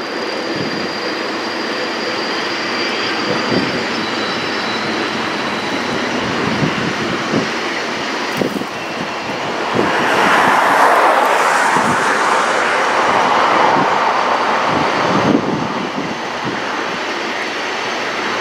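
Freight train of coal hopper cars rolling past: a steady rumble of steel wheels on rail with irregular clicks and knocks from the wheels, growing louder for a few seconds about ten seconds in.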